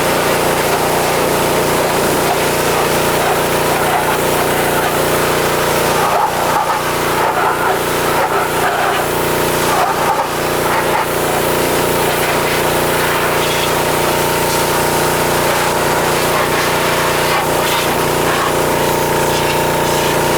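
Pressure washer running steadily, its motor giving a constant hum under the hiss of the water spray. The spray varies a little about midway.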